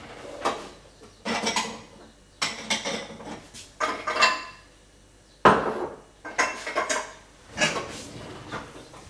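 Kitchen dishes and utensils clattering in about seven bursts of knocks, some with a short metallic ring, as things are handled and set down.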